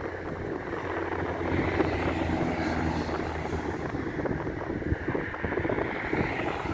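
Wind buffeting the microphone over the distant, steady rumble of a jet airliner's engines, which swells slightly in the middle. A low hum is also present in the first half.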